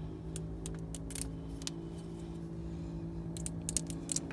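A few sharp light clicks as the old water pump gasket is worked off the engine's timing cover by hand, over a faint steady drone of held low tones that cuts off near the end.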